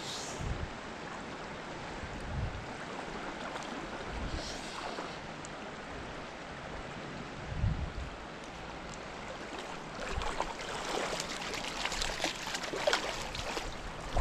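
Creek water rushing steadily, with closer splashing and crackling in the last few seconds.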